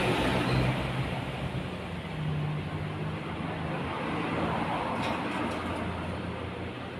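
Steady motor-vehicle and traffic noise: a low engine hum under a broad, even hiss.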